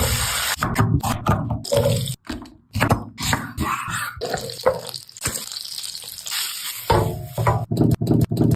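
Running water splashing, broken by many short knocks and handling sounds.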